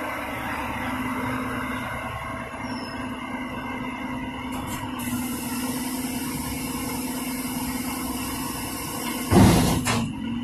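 Heil front-loader garbage truck's engine running with a steady hum. About nine seconds in comes a loud metallic bang, with a sharper knock half a second later.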